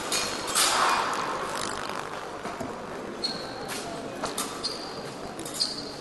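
Fencing hall ambience: a few sharp metallic clicks, each with a short high ring, of steel blades touching, over a low hall murmur, with a brief noisy burst about a second in.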